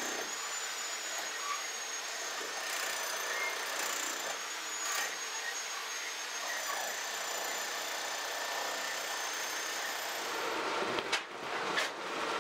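Belt conveyor running, carrying excavated earth and stones out of a basement: a steady mechanical whir with a thin high whine, and a few sharp knocks near the end.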